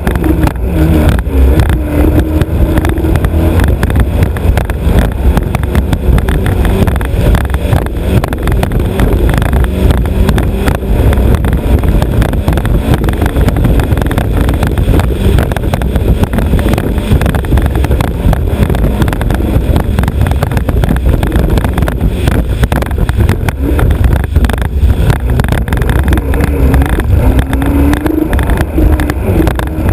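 Alfa Romeo Autodelta 2.5 V6 of a vintage racing hydroplane running steadily under way, heard from the bow. Its pitch wavers a little about a second in and again near the end.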